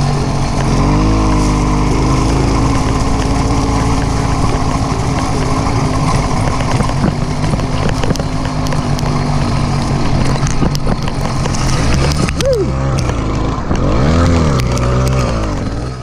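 An engine running and revving, its pitch rising and falling several times, with the biggest swings about twelve and fourteen seconds in.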